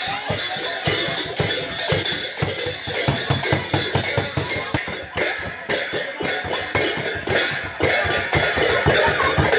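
Live folk processional percussion: a hand drum beaten and small brass hand cymbals clashed together in a quick, steady beat of about four strokes a second.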